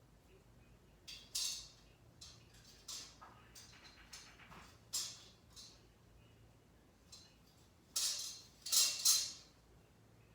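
Metal engine parts being handled: a scattered series of short clinks, rattles and scrapes, with the loudest cluster near the end.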